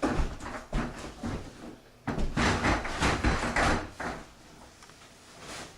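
Doors and cupboard doors being opened and shut, with knocks and a stretch of loud rustling and shuffling in the middle.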